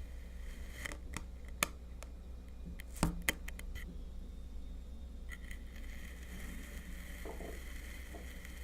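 Kinetic sand being cut and crushed. It gives a scattered handful of sharp crunchy clicks, the loudest cluster about three seconds in, over a steady low hum.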